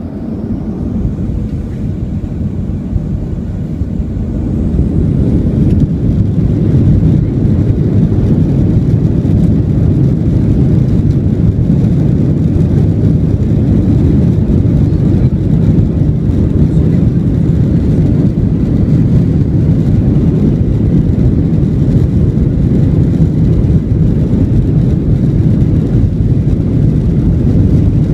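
Airliner jet engines spooling up to takeoff power: a faint rising whine and a swelling rumble over the first five seconds, then a loud steady low rumble through the takeoff run.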